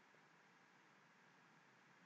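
Near silence: a faint, even background hiss with no distinct sound.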